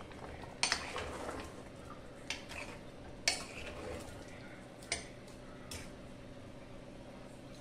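Metal ladle stirring chickpea curry in a metal pan, clinking sharply against the pan about five times.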